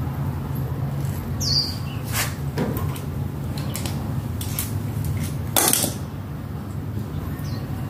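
Metal clicks and clinks from hands working on the motor and cable connectors under a Juki single-needle industrial sewing machine, about half a dozen sharp knocks with the loudest just before six seconds in. A steady low hum runs underneath, and a few short high chirps sound.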